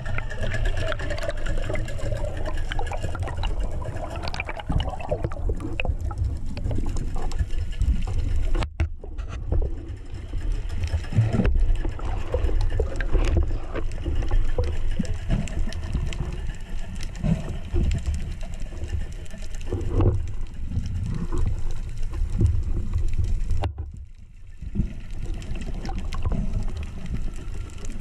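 Underwater rumble of moving water heard through an action camera's waterproof housing, with gurgles and bubble sounds as a spearfisher swims. The noise drops out briefly about a third of the way in and again near the end.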